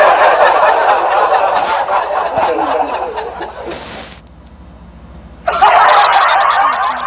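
A cat growling, with short hisses about two seconds in and again near four seconds; the growl pauses for about a second and then starts again.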